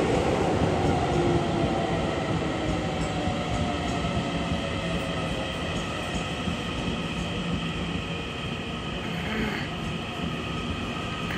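EMU900 electric multiple unit slowing as it pulls into a station, with wheels running on the rails and a motor whine that falls in pitch as it brakes. The sound gradually gets quieter.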